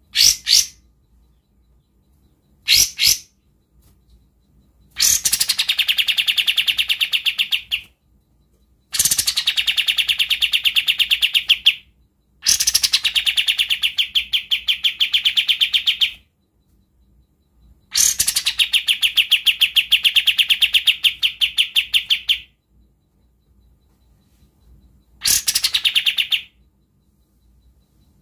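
Kapas tembak bulbul singing its rough, tightly packed rattling trill (besetan rapat kasar). Two short calls come first, then several bouts of three to four seconds each, every one opening with a dropping note before the fast rattle.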